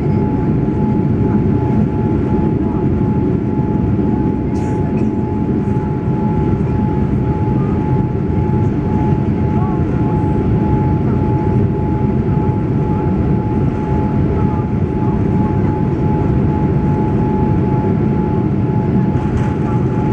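Inside the cabin of a Boeing 787 Dreamliner on its takeoff roll: a steady deep rumble of the engines and the wheels on the runway, with a thin engine whine held at one pitch above it.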